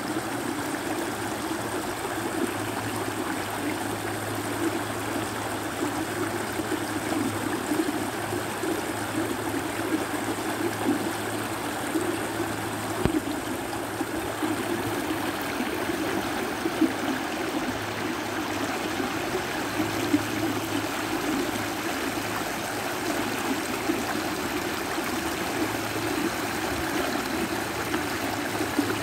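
Shallow creek running steadily over a rocky riffle.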